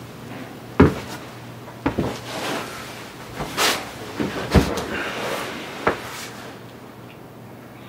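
Several sharp knocks and thumps with rustling between them, as of a person shifting about and handling things in a small room; the loudest knocks come about a second in and just past the middle.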